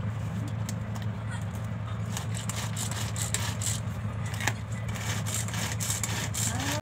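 Light plastic clicks and knocks as the lid is fitted and pressed onto a small manual mini food chopper, over a steady low hum.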